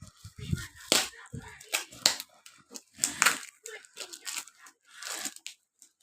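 Plastic snack packaging being torn open and crinkled, in short irregular crackling rustles.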